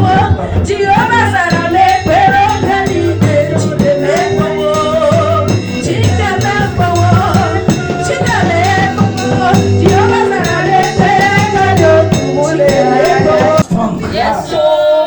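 Music: a sung melody over a steady bass line, with shaken rattle percussion keeping the beat.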